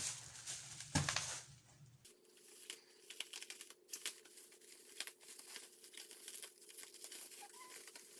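Packaging being handled, crinkled and torn open in quick irregular rustles and clicks, with one louder knock about a second in.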